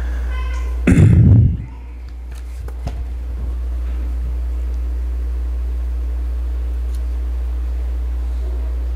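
Steady low hum of the pulpit sound system, broken about a second in by one loud low thump, then a few light clicks and rustles of paper sermon notes being handled at the pulpit.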